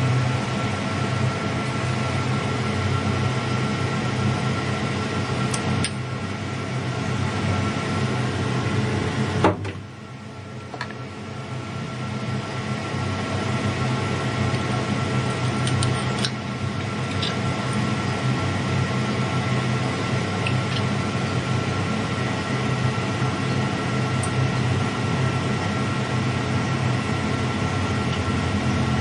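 Emco Turn 220 CNC lathe running, with a steady mechanical hum and whine from its spindle and drives. About nine seconds in there is a sharp click, after which the running noise drops away and builds back up over the next few seconds, as when the spindle slows and speeds up again.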